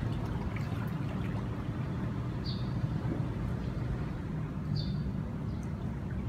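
Steady low rumble of distant city traffic, with a bird's short high chirp twice, about two seconds apart.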